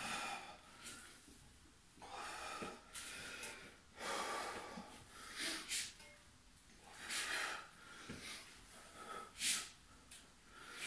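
A man breathing hard from exertion: a series of forceful, hissing breaths in and out, roughly one a second, with a few sharper puffs.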